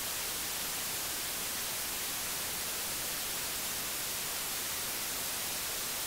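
Steady white noise hiss, even in level throughout.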